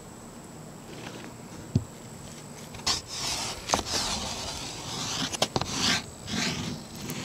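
A mixing stick scraping along a plywood seam as it spreads and smooths a thick epoxy fillet. The scraping comes as several strokes, starting about three seconds in.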